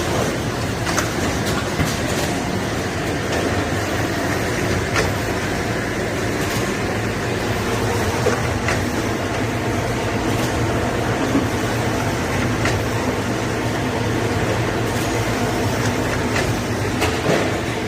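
FP6000CS shrink-wrapping machine running while it wraps lunch-box containers: a steady mechanical drone with a low hum, broken by scattered sharp clicks.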